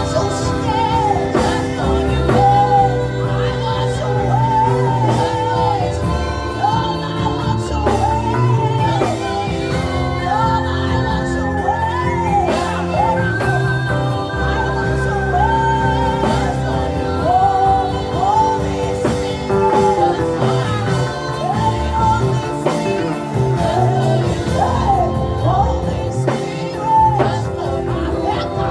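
Worship music: sustained chords under a voice singing a repeated rising-and-falling melody with no clear words.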